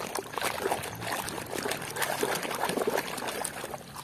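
A plastic toy car being scrubbed by hand in a tub of muddy, soapy water: irregular sloshing and splashing, quieter near the end.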